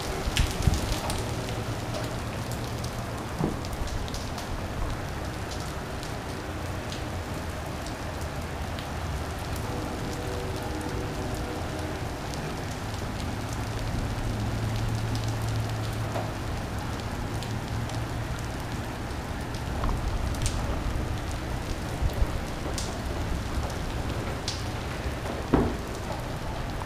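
Steady thunderstorm rain pouring onto pavement, driveways and lawns, with a few sharp ticks scattered through it.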